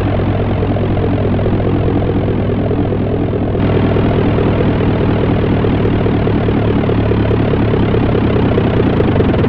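Software modular-synthesizer drone: a dense, steady stack of low held tones with a raspy, noisy upper layer, run through a rotary-speaker effect and hall reverb. The upper layer gets brighter and slightly louder about three and a half seconds in.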